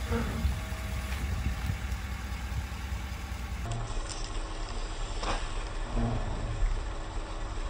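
Truck engine idling steadily while the big tire rolls onto a plastic drink bottle and bursts it, with a sharp pop and spray of liquid. The burst comes twice, just after the start and again about two-thirds of the way through.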